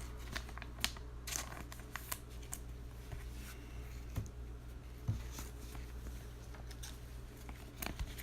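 Faint clicks and rustles of trading cards being handled and flipped through, over a steady low hum.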